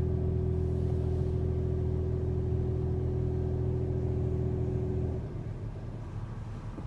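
Steady low motor hum that cuts off suddenly about five seconds in, leaving a fainter rumbling noise.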